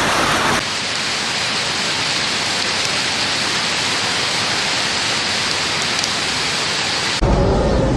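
Heavy storm precipitation, rain and hail, beating down on surfaces in a dense steady hiss. The sound changes abruptly about half a second in and again near the end, where a heavier low rumble comes in.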